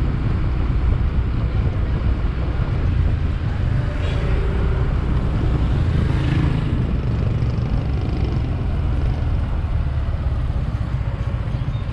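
Motorcycle riding along a road, its engine running steadily under a heavy wind rumble on the microphone, briefly louder about six seconds in.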